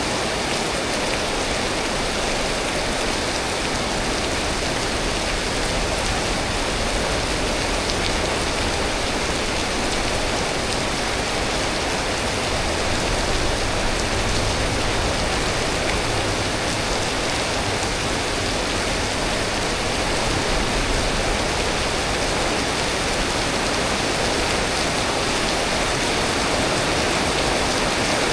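Rain from a storm falling steadily, an even hiss with no let-up.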